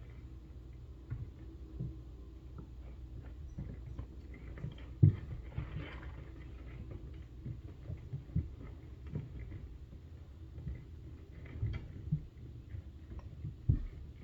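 Irregular tapping, knocking and light scratching from inside a ceiling, with no steady rhythm; the strongest knock comes about five seconds in and another near the end. A faint steady low hum sits under it.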